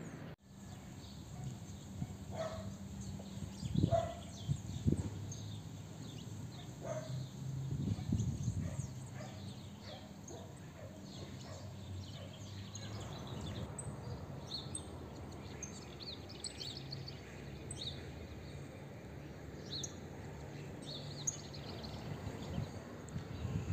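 Outdoor ambience with birds chirping, short high calls that grow more frequent in the second half, over a low steady hum. A couple of soft thumps come about four and five seconds in.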